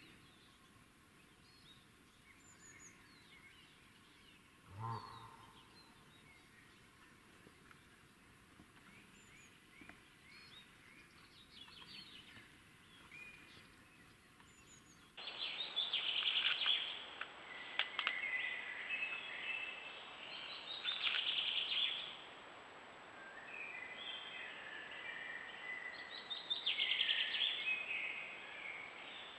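Wild songbirds singing in woodland: faint, scattered chirps at first, then a much louder, busy chorus of several birds singing over one another from about halfway on. A single brief low sound stands out about five seconds in.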